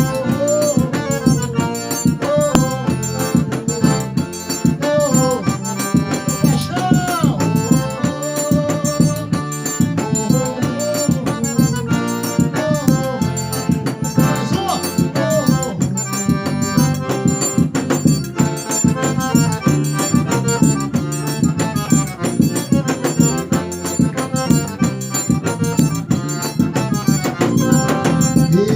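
Forró music: an accordion melody over a steady, even beat with a shaker.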